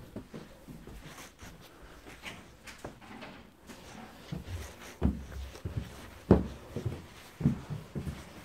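Irregular low thuds and knocks from footsteps and bumps while picking through a cluttered room. A few louder thuds fall about a second apart in the second half.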